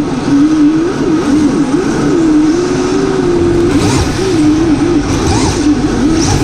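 Electric motor of an RC drift car whining, its pitch rising and falling over and over as the throttle is worked, over a hiss of tyres sliding on the track.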